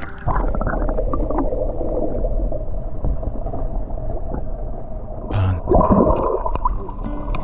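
Muffled underwater gurgling and churning of pond water heard through a submerged camera, dull and bass-heavy. About five and a half seconds in there is a brief splash, followed by a louder surge of bubbling.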